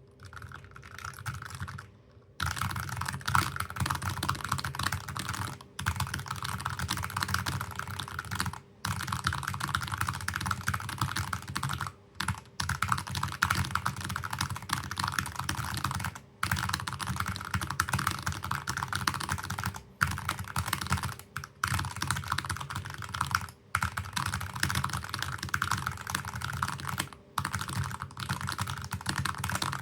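Very fast touch-typing on a NuPhy Air60 HE keyboard with Jade Pro Hall-effect magnetic switches and Cherry-profile keycaps: a dense, rapid stream of keystroke clacks, broken by brief pauses every three to four seconds.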